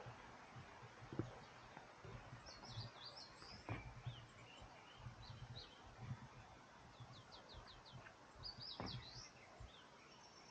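Faint birdsong in woodland: scattered short chirping phrases from small birds, including a quick run of about five descending notes partway through, over faint low rumbles.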